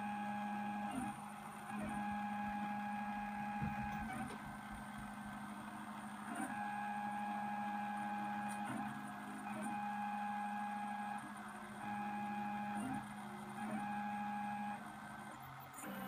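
Drawing CNC machine's stepper motors whining as the machine moves, a steady-pitched hum that starts and stops in runs of one to two seconds with short pauses between moves.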